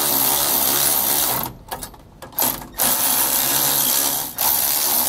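Cordless electric ratchet with a 9/16 socket running nuts down onto the U-bolts of a steering-stabilizer bracket, its motor whining. It runs in three stretches of a second or two, with a couple of brief blips in a pause near the middle.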